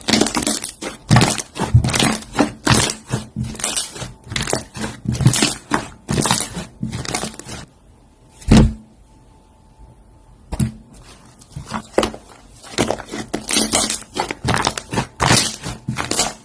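Slime being pressed, poked and squeezed by hand, giving rapid, irregular crackling and popping clicks. The clicks pause for about two seconds midway, broken by a single thud, then pick up again.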